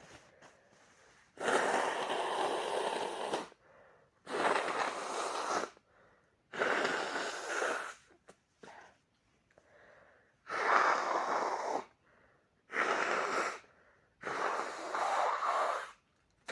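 A person with a cold blowing a congested nose hard into a tissue, six long blows of about a second and a half to two seconds each, with faint breaths between.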